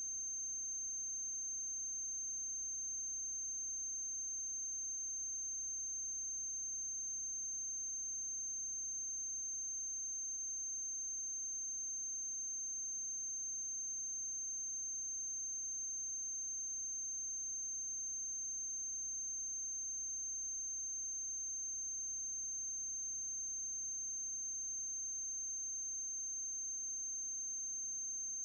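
A steady high-pitched electrical whine over a faint low mains hum, unchanging throughout: the noise floor of the transfer behind silent film, with no other sound.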